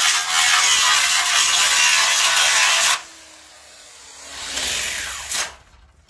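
Angle grinder with a wire cup brush scouring the surface of pressed-tin ceiling tiles, cleaning the old metal up to a shine: a loud, steady grinding hiss that cuts off about three seconds in. The motor then winds down with a faint falling whine, and a brief swell of noise follows about a second before the end.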